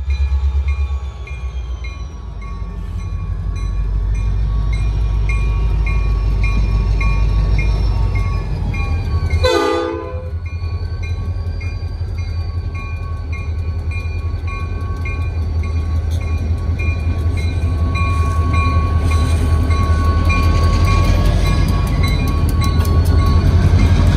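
EMD SD40-2 and GP15-1 diesel locomotives running with a steady low engine rumble. The rumble grows louder over the second half as the train works. About ten seconds in there is one short horn toot.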